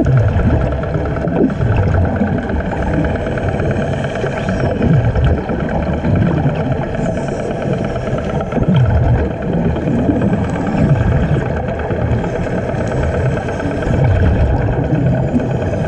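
Underwater sound of a motor running steadily at the surface, heard through the water, under repeated low rumbling gushes of air bubbles from divers breathing off compressor hoses.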